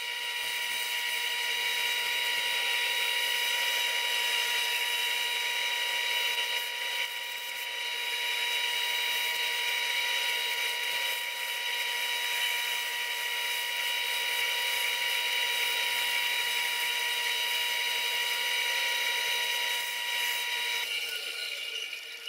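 Bandsaw running and cutting through thick wood letter stock: a steady whine with a hiss of cutting. Near the end the whine falls in pitch and fades away.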